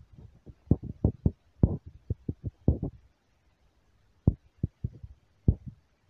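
A run of short, dull thumps at an irregular pace, with a pause of about a second just after the middle.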